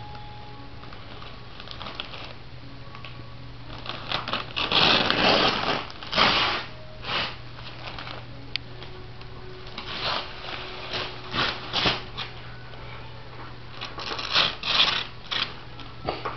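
Wrapping paper crinkling and tearing in irregular bursts as a toddler's hands pull it off a soft gift, loudest about four to six seconds in. A steady low hum runs underneath.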